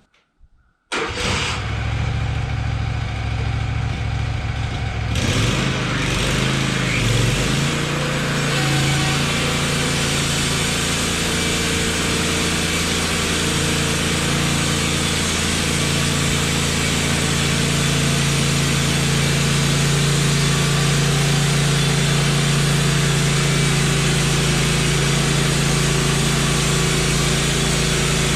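Wood-Mizer LT15 sawmill's engine coming on suddenly about a second in. It gets louder and fuller about five seconds in, settles in pitch a couple of seconds later, and then runs steadily.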